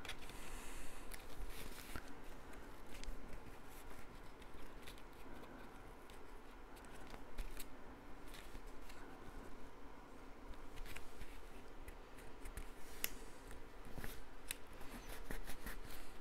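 Cardstock being handled: soft rustling and scraping of paper as a card piece is worked through a slot and pressed flat on the table, with scattered light clicks and taps.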